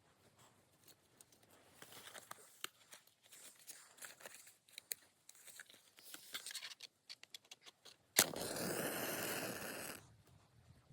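Dry wood and kindling crackling and snapping irregularly. About eight seconds in comes a sharp crack, followed by about two seconds of loud rushing noise that stops abruptly.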